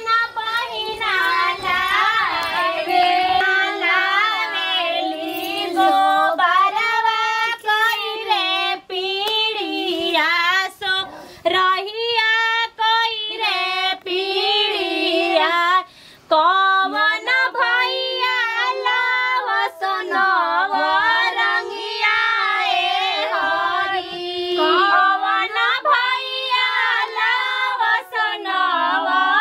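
Women singing a song unaccompanied, in long melodic phrases, with a short break about halfway through.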